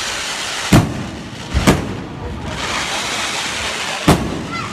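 Aerial fireworks exploding: three loud, sharp bangs, about a second in, shortly before two seconds, and near the end, over a continuous rushing background.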